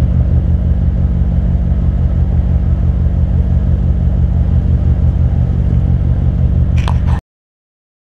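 BMW E39 M5's 4.9-litre V8 idling steadily through a custom exhaust, a loud, even, pulsing note. It cuts off abruptly about seven seconds in.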